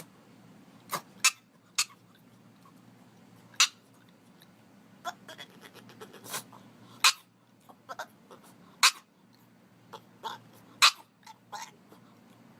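An animal making a string of short, sharp noises at irregular intervals over a faint low hum.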